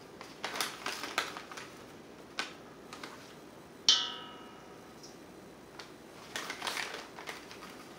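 Red plastic measuring spoon scooping seasoning out of a paper packet, with crinkling and scraping in two short spells. Just before four seconds in comes one sharp tap that rings briefly, the spoon knocking against the stainless steel mixing bowl.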